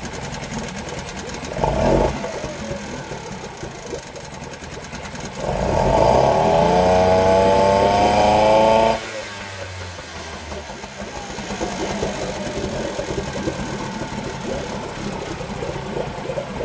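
Mariner 4 hp single-cylinder two-stroke outboard motor running. It is blipped briefly about a second and a half in. From about five seconds in it revs up, rising in pitch for about three and a half seconds, then drops suddenly back to idle.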